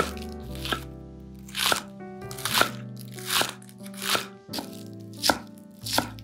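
Chef's knife slicing through green onions onto a wooden cutting board: crisp cuts about once a second, seven in all, over background music with sustained notes.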